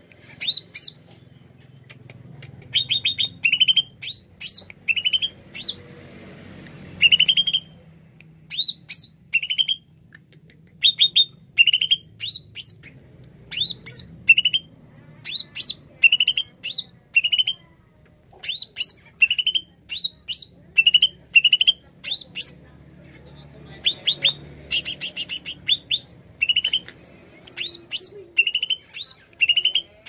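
Caged male cucak ijo (green leafbird) singing at full volume (gacor): short rising whistled notes and quick chattering runs. The phrases repeat about once or twice a second in bouts, with a few brief pauses.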